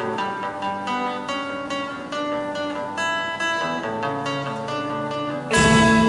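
Guitars picking a single-note intro line, then a sudden, much louder entry of strummed chords about five and a half seconds in.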